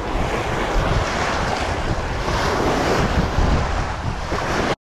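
Small waves washing over a rocky shoreline, with wind buffeting the microphone; the sound cuts out abruptly near the end.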